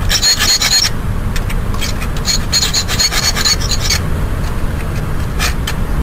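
Scraping on a plate, a continuous rasping scratch made of many short strokes. Two spells of high-pitched squeaky scrapes come through, one at the start and one from about two to four seconds in. The sound cuts off suddenly at the end.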